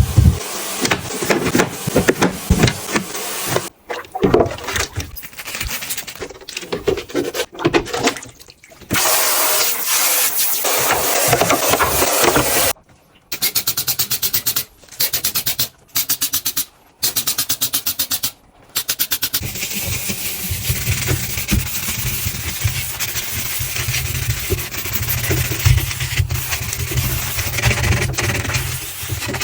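Refrigerator being cleaned by hand: a series of scrubbing, wiping and rubbing noises, with a stretch of fast, even strokes in the middle broken by short pauses.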